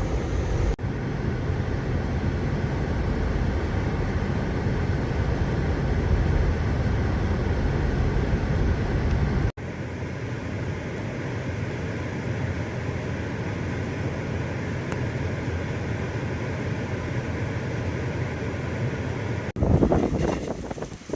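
Steady road and engine noise from a vehicle driving through the winter storm, changing abruptly twice as the footage cuts. About a second and a half before the end, loud gusts of wind start buffeting the microphone.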